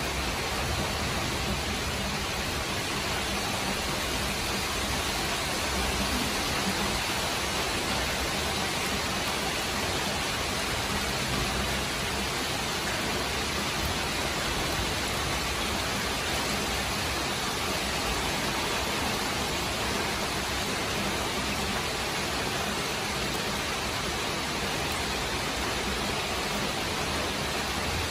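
Heavy rain pouring down in a steady, unbroken hiss, with no thunderclap.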